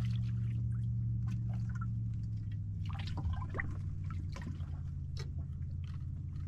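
Water pouring and splashing, with scattered small irregular splashes, over a steady low hum.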